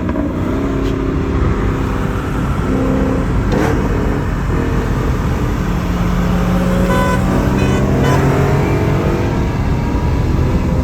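Infiniti G35's 3.5-litre V6 pulling hard under acceleration, its pitch climbing, dropping back twice and climbing again.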